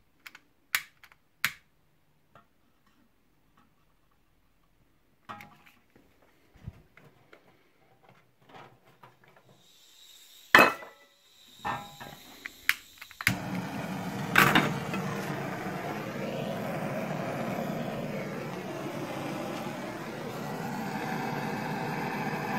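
A few sharp lighter clicks and handling knocks, then about thirteen seconds in a butane cartridge blowtorch lights with a sudden onset and burns steadily with a loud hiss whose tone slowly wavers.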